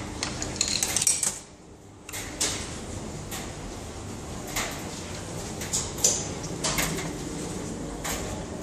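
A quick run of sharp metallic clicks and clinks about half a second to a second in, coins being fed into a laundromat's coin-operated payment terminal. Then scattered single clicks and knocks of handling.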